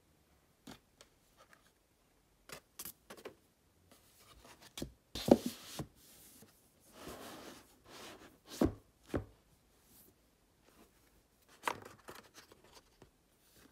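Irregular light knocks, taps and rustles of objects being handled, with a few louder thumps.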